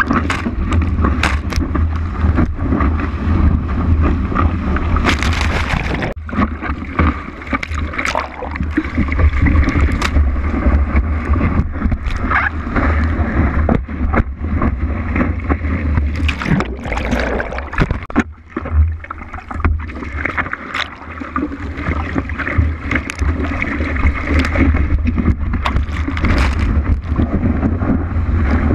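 Water rushing and splashing against a surfboard-mounted action camera as the board rides through a wave, with wind buffeting the microphone. The rush dips briefly a couple of times.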